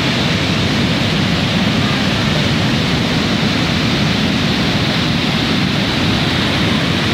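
Flash-flood torrent of muddy, debris-laden water rushing down a rocky channel: a loud, steady rush, heaviest in the low range.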